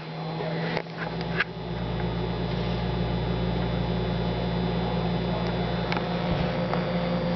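Microwave oven starting up with a couple of clicks in the first second and a half, then running with a steady, even low hum while a marshmallow Peep heats inside.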